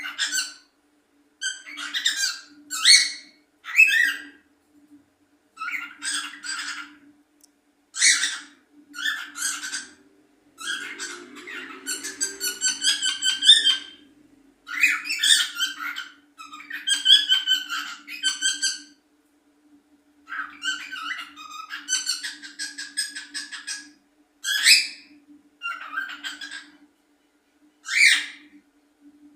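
Curió (chestnut-bellied seed-finch) singing: a string of short whistled phrases and quick trills with brief pauses between them, over a faint steady hum.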